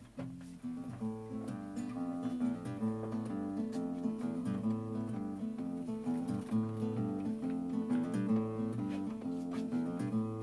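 Acoustic guitar playing a song's introduction: chords in a steady rhythm, starting about half a second in.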